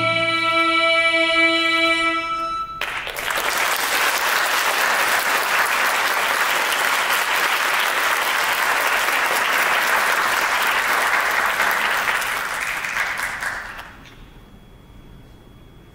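The last long held note of a Gokayama folk-song ensemble stops about three seconds in. An audience then claps for about ten seconds, and the applause dies away near the end into room tone.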